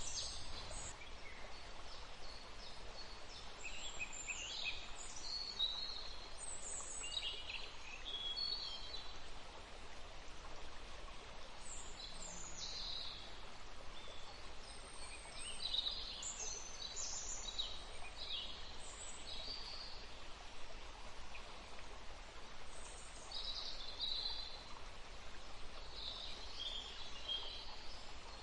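Several songbirds chirping and trilling in short high phrases over a steady background hiss.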